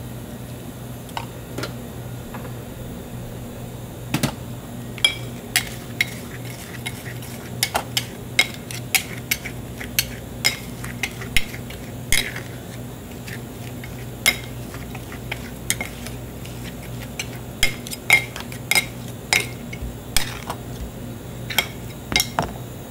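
Metal spatulas clinking and scraping on a chilled cold-stone plate as ice cream is mixed and worked. Irregular sharp, ringing clicks, sparse at first and coming thick from about four seconds in, over a steady low hum.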